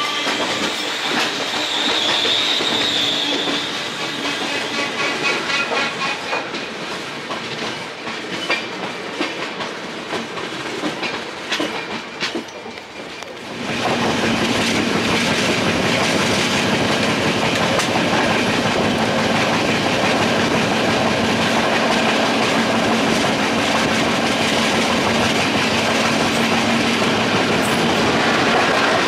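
Passenger train running on the rails, heard from aboard, with wheels clattering over rail joints while another train passes close alongside. About 14 s in the sound changes abruptly to a steadier, louder rush of the train running at speed, with a low hum under it.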